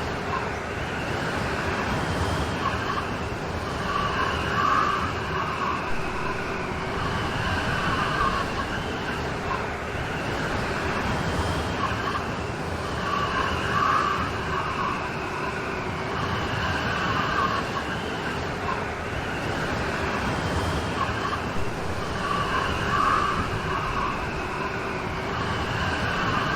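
Steady rain storm: an even, continuous rush of heavy rainfall, with a brighter swell that comes back about every nine seconds.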